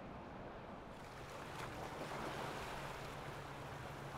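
Boat engine running on the water with the wash of water and wind. About a second in, a steady engine hum and hissing spray come in and hold.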